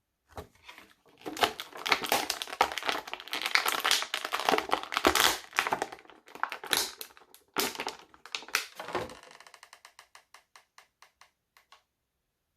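Plastic and cardboard action-figure packaging being handled and opened: a dense run of crinkling, cracking and tapping. Near the end it gives way to a string of faint, even ticks, about four a second, which then stop.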